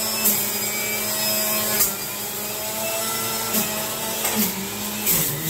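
Electric centrifugal juicer running steadily while fruit chunks are pressed down its feed chute with the plastic pusher. Several short grinding surges rise over the motor hum as the pieces hit the spinning cutter.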